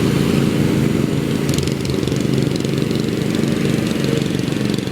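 Riding lawn mower's small engine running steadily close by.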